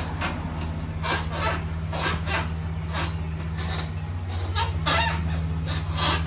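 Mitsubishi Delica Space Gear suspension squeaking over and over, about one or two short squeaks a second, some rising then falling in pitch, over a steady low engine hum. This is the abnormal noise being repaired, which the video links to the upper arm.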